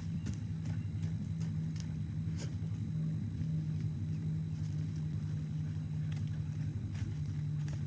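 Steady low droning hum with several pitches layered together and a few faint clicks above it; the strange noise picked up below the osprey nest, its source unidentified.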